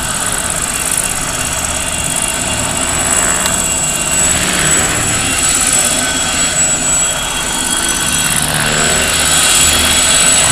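Scale Aérospatiale SA 315B Lama RC helicopter in low flight: a steady, high turbine whine from its onboard sound module over the noise of the rotor blades. It grows slightly louder near the end as the helicopter comes closer.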